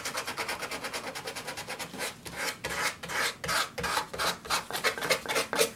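Sandpaper rubbed by hand over a carved wooden scroll, scratchy back-and-forth sanding strokes. The strokes are quick and short at first, then slower and longer from about two seconds in.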